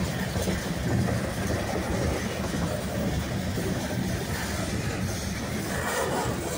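Freight train of covered hopper cars rolling past close by: steady, deep running noise of steel wheels on the rails.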